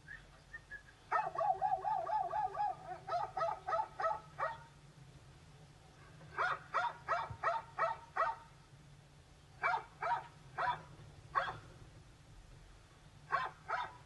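A dog giving a long, wavering whine, then short, high-pitched yips and barks in four quick runs.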